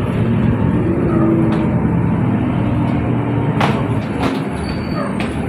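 Inside a moving TransJakarta city bus: steady engine and road rumble, with a couple of sharp knocks or rattles a little past halfway.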